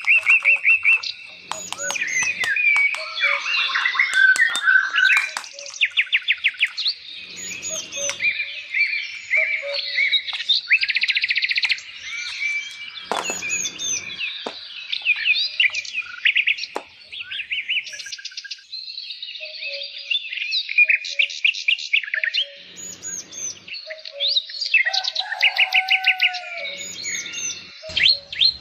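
Songbirds chirping and singing continuously, with sharp repeated chirps and fast trills. A few brief low rumbles break in now and then.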